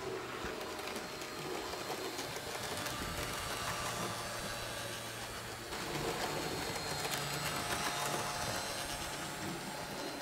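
Roco HO-scale BR 103 model locomotive running along the track: a steady whir of its small electric motor and gearing, with the wheels rolling on the rails. It gets a little louder about six seconds in.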